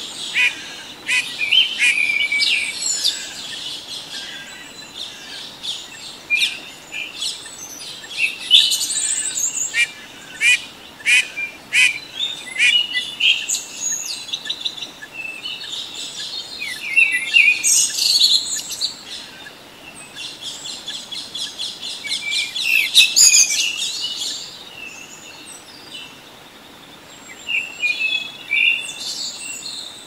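Woodland songbirds singing and calling, many quick chirps, trills and short phrases overlapping, thinning out near the end.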